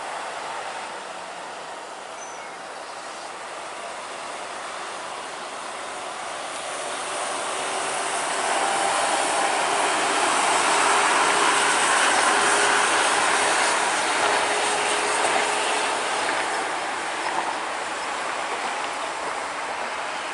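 Mercedes-Benz OH 1626 coach passing close by: its engine and tyre noise swell to a peak about halfway through, then fade as it drives away.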